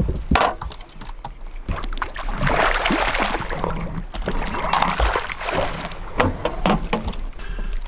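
Hooked trout splashing and thrashing at the surface as it is brought to a landing net, in two spells of splashing water, with a few sharp knocks in between.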